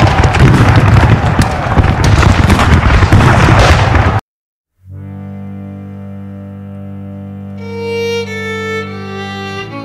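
Loud, dense battle noise with low booms, which cuts off suddenly about four seconds in. After a moment of silence, slow string music begins: low held chords, with a violin melody entering near the end.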